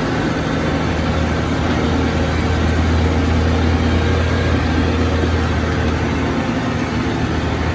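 Heavy diesel engine running steadily under load: a loud, even low hum with mechanical noise over it.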